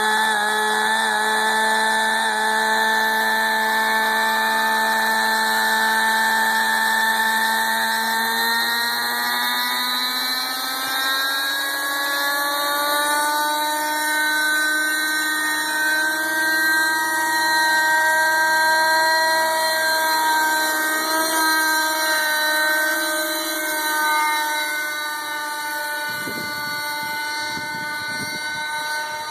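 JR Venture 30 RC helicopter's O.S. .37 two-stroke nitro engine running, rising steadily in pitch partway through as the rotor spools up and the helicopter lifts off. It then holds a high, steady pitch with slight wavers as it flies.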